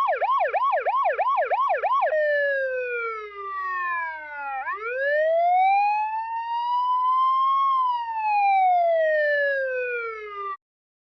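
Electronic siren sounding a fast yelp, about three or four rising sweeps a second, that changes about two seconds in to a slow wail gliding down, then up, then down again over several seconds. It cuts off suddenly near the end.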